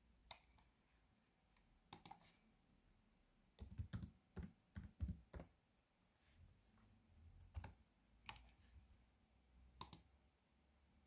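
Laptop keyboard keys tapped in a quick run of about eight strokes, typing a short word, with a few single clicks before it and three more spread out over the following seconds.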